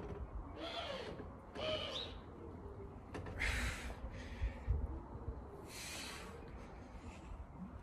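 A person breathing out hard while doing one-arm bicep curls with a tin-loaded bag: four forceful exhales spaced one to two seconds apart, the first two with a short voiced 'hoo'.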